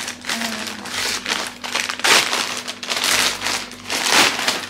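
Plastic mailer bag and its wrapping crinkling and rustling as a parcel is handled and opened, in a run of crackling bursts, loudest about two seconds in and again near the end.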